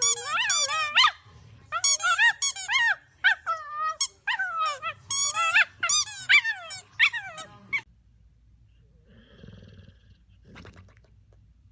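A dog whining and yowling in a run of high, wavering cries, broken into short phrases, that stops about eight seconds in.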